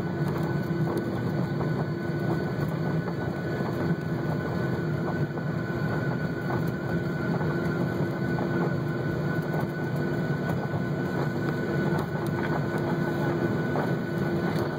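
Cabin noise of a Boeing 737-800 rolling along the runway after touchdown: the CFM56 engines running with a steady hum and whine over the rumble of the landing gear on the pavement, with scattered light knocks and rattles.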